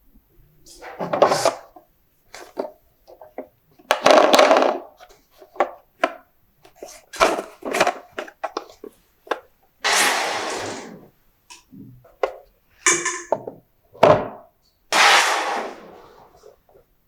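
Marbles rolling and clattering down a wooden marble run: rolling runs of about a second each, mixed with many sharp clicks and knocks as they drop onto and hit the track pieces.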